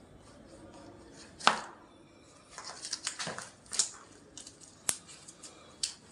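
Sounds of a chiropractic adjustment. One loud, sharp crack comes about a second and a half in, followed by a flurry of smaller clicks and rustling as the patient is handled, and two more single clicks near the end.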